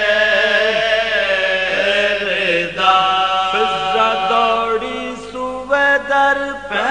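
Male voice chanting an Urdu marsiya in soz style: long, drawn-out melodic lines whose pitch bends and slides, with a brief break for breath near the middle.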